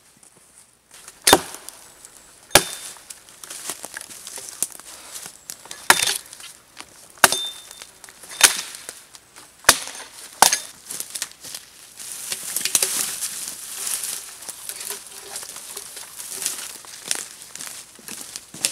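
An axe chopping into a dead log: about seven sharp, loud chops spaced a second or more apart, a few with a short metallic ring, then a stretch of quicker, lighter cracking and scraping of wood.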